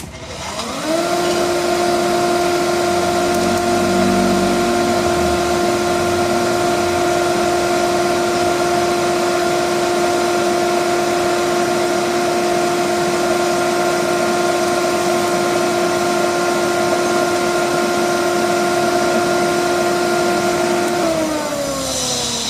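An electric motor-driven workshop tool spinning up, running steadily with a whine and a hiss for about twenty seconds, then spinning down near the end.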